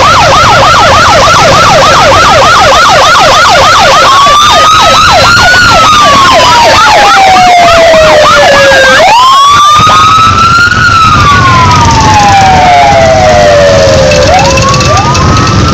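Siren sounding loud and close: a fast yelp of about four or five sweeps a second for the first few seconds, then changing to slow wails that rise and fall, with a sharp rise about nine seconds in. Underneath, the low running of the parade's Harley-Davidson motorcycle engines.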